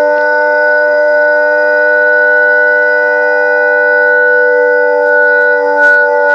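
Loud, sustained drone of several steady tones sounding together as one unchanging chord, with a few faint clicks near the end.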